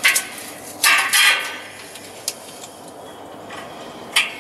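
Metal parts of an air compressor pump clanking and clinking as the finned high-pressure cylinder is handled and set onto the crankcase. A few sharp knocks: one at the start, a louder cluster about a second in, and one more near the end.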